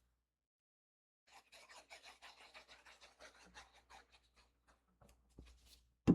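Paper and cardstock rubbed and scratched in quick short strokes for about three seconds as card pieces are glued and pressed down, then a sharp knock at the very end.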